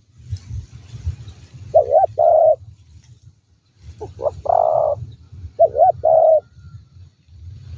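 Spotted dove cooing three times. Each phrase is two short notes followed by a longer drawn-out coo, over a low rumble.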